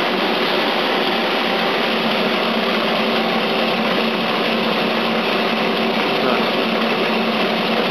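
Atlastar SH500 electric pizza dough sheeter running, its motor and rollers giving a steady mechanical hum with a low tone as a dough ball passes through the rollers and is flattened.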